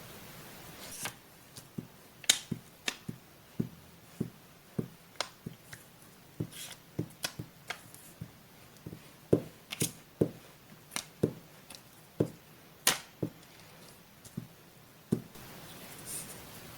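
Scissors snipping paper in a string of sharp, irregular snips, roughly two a second, stopping shortly before the end.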